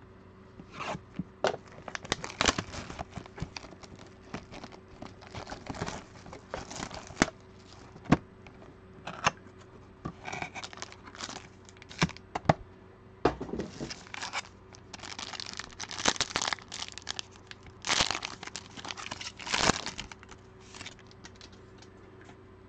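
Wrapping on a sealed trading-card hobby box being torn and crinkled open, in a run of irregular rips and rustles, the loudest near the end.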